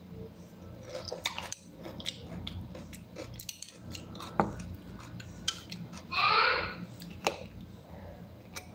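Metal fork clicking and scraping against a bowl while salad is picked up and chewed. A brief voice, the loudest sound, comes about six seconds in.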